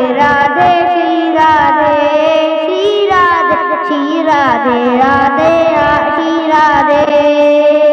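A boy singing a Hindi devotional bhajan over backing music, with long held notes and sliding, falling pitches.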